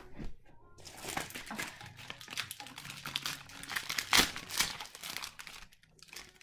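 Plastic magnetic building tiles being pulled apart as a cube of square tiles is broken up: an irregular run of clicks, snaps and clatter, with a louder knock about four seconds in.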